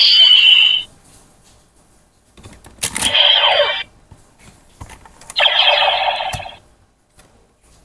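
Bootleg CSM Decadriver toy belt's electronic sound effects from its small speaker: the tail of a transformation sound, then a plastic click as the side handles are pulled to turn the buckle open, with a short electronic sound that falls in pitch, and a second electronic tone about a second long near the end.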